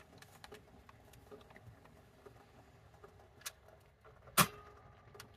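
Hands handling coffee-making things in a small space: light scattered clicks, taps and packaging rustles, with one sharp knock about four and a half seconds in, the loudest sound.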